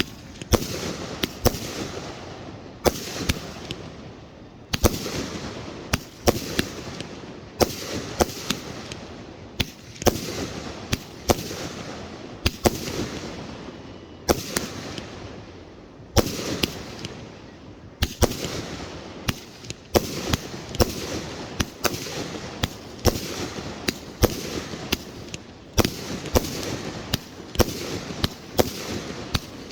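Aerial fireworks bursting in quick succession, a sharp bang about once a second, each followed by a rumbling echo that dies away.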